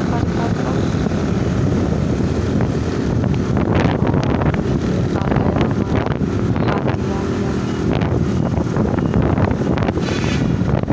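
Steady wind rumble on the microphone mixed with a vehicle's engine and road noise, recorded from a moving vehicle, with a few brief knocks.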